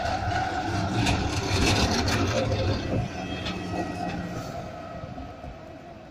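Tram passing close by and pulling away: the running noise of steel wheels on rails, with a low hum, a steady whine and clicks. It is loudest in the first three seconds, then fades as the tram moves off.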